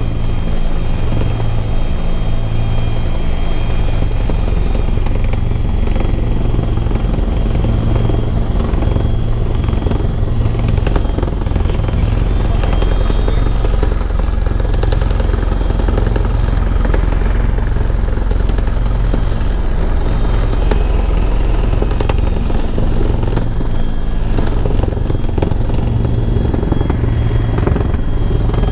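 Bell 412 helicopter in steady cruise flight: a constant heavy rotor drone with a thin, high turbine whine above it that wavers slightly in pitch.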